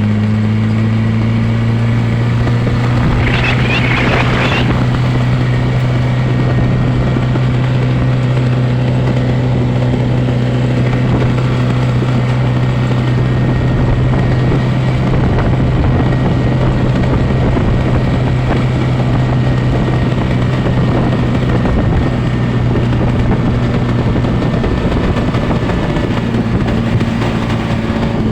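An engine running steadily at constant speed throughout, with a short, wavering, high-pitched sound over it about three to four seconds in.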